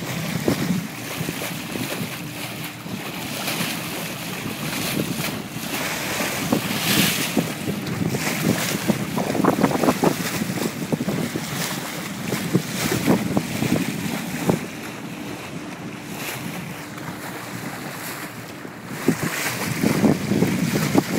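Wind buffeting the microphone and water rushing and splashing along the bow of a moving fishing boat, swelling and easing in surges, over a faint steady engine hum.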